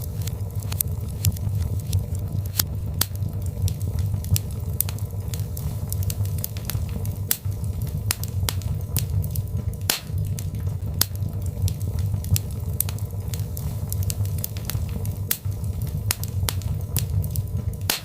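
Birch logs burning in a fireplace: a steady low rumble of flame with frequent, irregular sharp crackles and pops.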